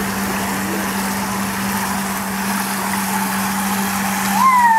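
Steady spray of water from a pipe splashing into an above-ground pool, over a constant low hum. Near the end comes a short high call that rises, then slides down.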